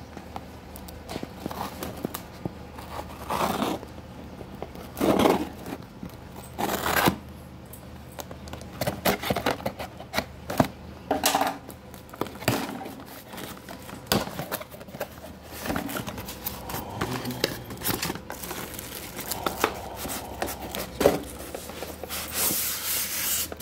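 Cardboard box being opened with scissors and by hand: tape tearing, cardboard scraping and flaps pulled in irregular bursts, with plastic wrap crinkling near the end.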